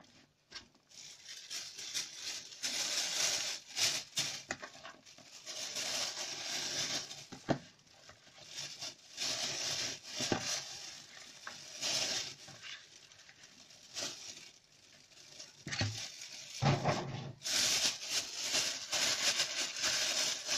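Clear plastic freezer bag crinkling and rustling in irregular bursts as handfuls of julienned bell pepper strips are scooped from a plastic bowl and packed into it.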